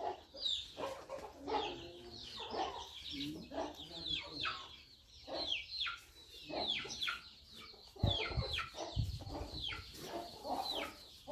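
Free-range country chickens clucking, with many short high calls falling in pitch. A couple of low thumps come about eight and nine seconds in.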